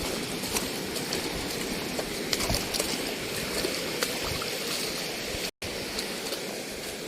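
Shallow seawater washing and trickling over rocks at low tide, with scattered small clicks and knocks.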